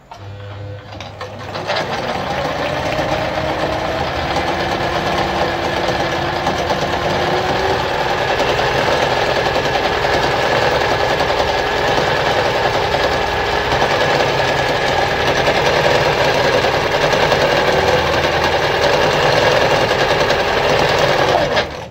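Veritas Automatic 8014/3 sewing machine sewing a decorative stitch pattern. It picks up speed over the first two seconds, runs at a steady pace and stops suddenly near the end.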